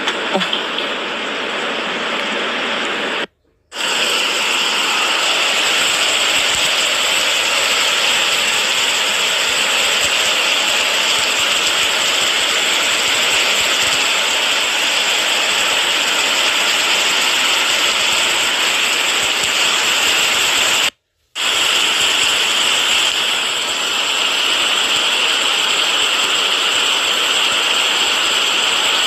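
Heavy rain pouring onto a swimming pool and the garden foliage around it, a steady hiss of water. It cuts out briefly twice, about three and a half seconds in and again about twenty-one seconds in.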